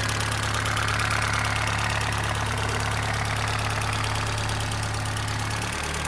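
Car engine idling steadily and sounding rough, a sign of worn parts inside the engine; the mechanic suspects worn valve shims and a need for a top overhaul.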